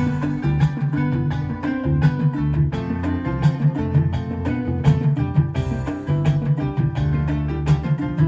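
Instrumental music: a plucked guitar-like melody over a bass line, with percussion hits keeping a steady beat.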